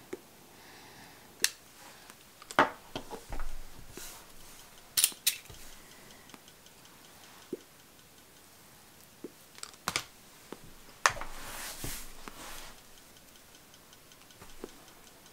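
Puffing on a tobacco pipe while lighting it with a lighter: scattered small lip pops and clicks at irregular intervals, with a short breathy rush about eleven seconds in. These are the first draws as the tobacco catches.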